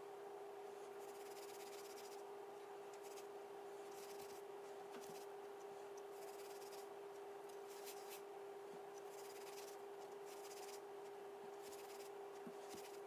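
Faint, irregular rubbing strokes of a paper towel being smoothed by hand over crusting buttercream on a cake's side, over a steady hum.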